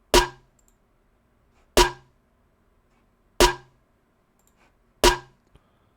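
Electronic snare drum sample played alone, four sharp hits about a second and a half apart, each with a short decay.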